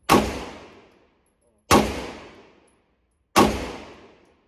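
Three pistol shots from a handgun with a ported slide, evenly spaced about a second and a half apart. Each sharp report is followed by about a second of echo off the walls of an indoor range.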